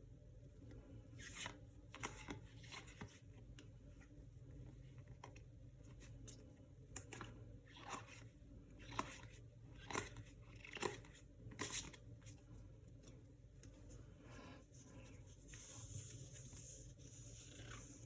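Faint handling of a trading-card booster pack: the foil wrapper crinkling and tearing in short scattered rustles, with a longer stretch of rustling near the end.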